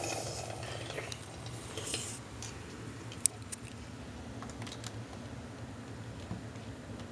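Handling noise: scattered light clicks and knocks with some rustling in the first two seconds and one sharp click about three seconds in, over a low steady hum.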